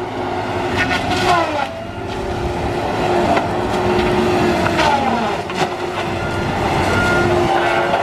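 Tigercat LX830D tracked feller buncher running under load: its diesel engine and hydraulics make a steady mechanical drone. The pitch drops twice, about a second in and about five seconds in, with a few short cracks of wood.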